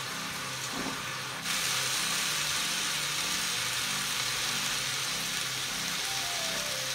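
Stir-fried vegetables sizzling in a frying pan. About a second and a half in, the sizzle turns louder as chopped cabbage goes into the hot pan, and it then holds steady while the vegetables are stirred.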